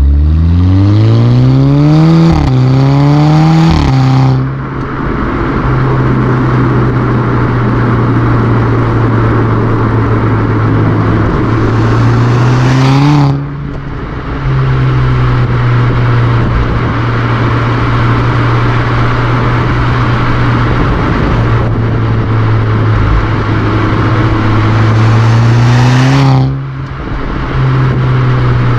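Exhaust of a Mk6 VW Golf R's turbocharged four-cylinder running an APR Stage 2+ tune, heard right at the tailpipes while driving. In the first few seconds it pulls up with rising pitch through a quick upshift, then settles to a steady cruise. It rises again and briefly dips about 13 seconds in and near the end.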